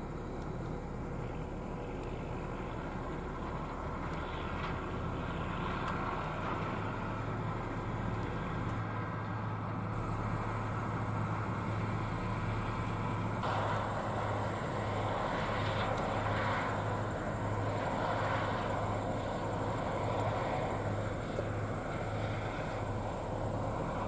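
New Holland CR9040 combine harvester running at a distance: a steady low engine hum under a continuous machinery rumble. About halfway through the sound becomes fuller and slightly louder.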